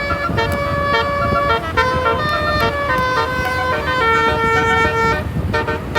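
Basuri 'telolet' multi-tone bus horn playing a melody of held notes that step down in pitch, with the longest note about four seconds in, over a low rumble. The tune breaks off briefly near the end and resumes in short notes.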